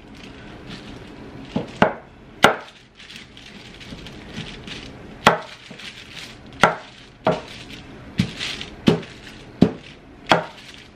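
Wooden rolling pin rolling out dough between plastic sheets on a wooden tabletop, with sharp wooden knocks as the pin strikes the table, about ten in all and coming more regularly in the second half, over a soft rustle of the plastic.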